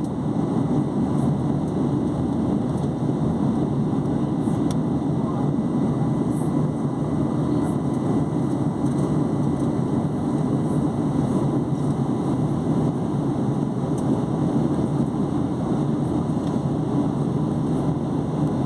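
Steady, unchanging low roar of an airliner's engines, with no rise or fall in level.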